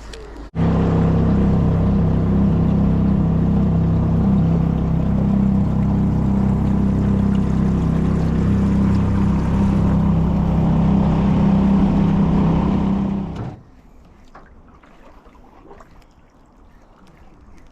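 Small boat's outboard motor running at a steady speed under way, a loud even drone that starts abruptly about half a second in and cuts off suddenly about three-quarters of the way through, leaving only faint small knocks.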